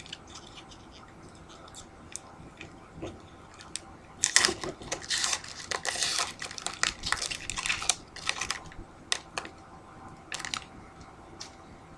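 Foil trading-card pack wrapper being torn open and crinkled, a dense crackling that runs for about four seconds, followed by a few light clicks.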